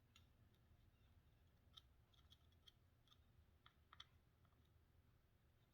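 Near silence with faint, scattered small clicks and taps of hand tools against the PlayStation 2 power supply board during desoldering.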